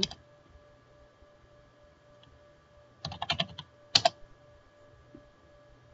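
Computer keyboard typing: a quick run of keystrokes about three seconds in, then one more sharp key strike about a second later. A faint steady hum lies under them.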